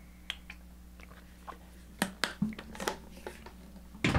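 A scattering of short clicks and light knocks over a faint steady hum, the sharpest about two seconds in: small handling noises at a desk.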